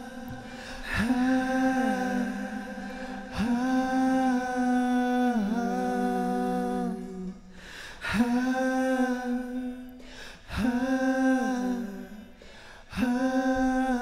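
Three soloed, multitracked vocals singing held harmony notes with no instruments behind them, run through an OrilRiver 'Large Chamber' algorithmic reverb whose decay time is being lengthened as they play. There are five phrases of about two seconds each, each sliding down in pitch at its end and trailing off into reverb.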